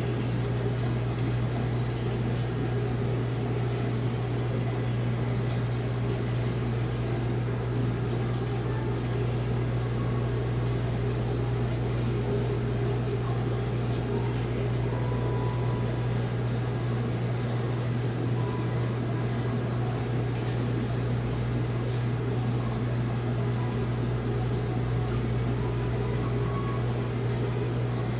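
Steady low mechanical hum that holds level throughout.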